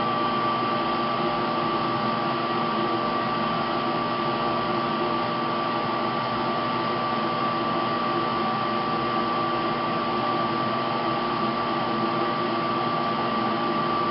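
Steady rushing of a laboratory flow hood's blower fan, with a steady high whine and a low hum running under it.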